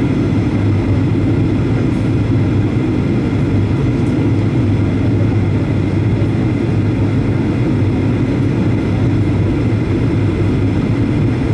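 Steady cabin noise of a Boeing 737-800 heard from a window seat over the wing, on approach: the CFM56-7B engine and the airflow make a loud, even, deep hum with no change.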